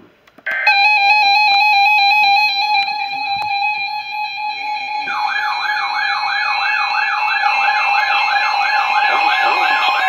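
Several weather alert radios, Midland among them, sounding their alarms together as a Special Marine Warning comes in: a chord of steady electronic alert tones starts about half a second in, and a warbling siren tone, rising and falling about twice a second, joins about five seconds in.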